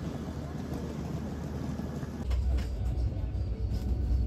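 Open railway platform ambience, then, after a cut about two seconds in, a steady low rumble inside a sleeper train coach with a few light knocks.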